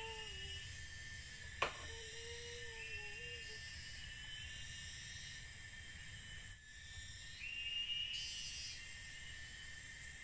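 Steady high-pitched drone of forest insects, pulsing and shifting in pitch every few seconds. A faint wavering tone sounds twice in the first few seconds, and there is one sharp knock about one and a half seconds in.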